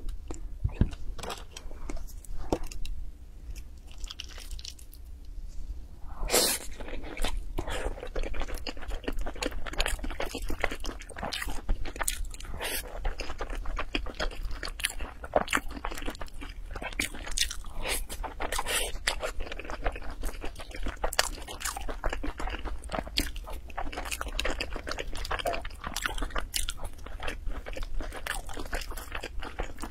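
Close-miked chewing and wet mouth clicks of a person eating sticky millet zongzi. The chewing is sparse at first, then dense and steady from about six seconds in.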